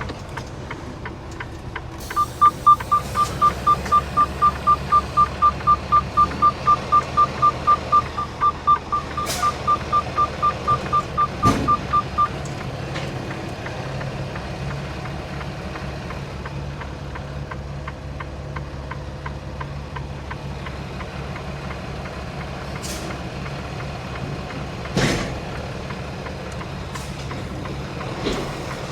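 A truck's electronic warning beeper sounding rapidly, about four high beeps a second, for about ten seconds and then stopping, over the steady low idle of the semi-truck's diesel engine. A few sharp clicks and knocks follow.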